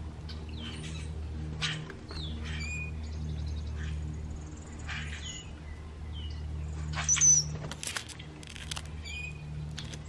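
Wild songbirds calling: short chirps, squeaks and quick whistled slurs, with a loud shrill call about seven seconds in followed by a few sharp clicks. A steady low hum runs underneath.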